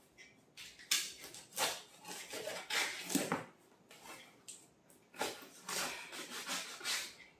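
A large knife slitting the packing tape on a cardboard box, then the cardboard being pulled open and rustling: a run of short, irregular scrapes.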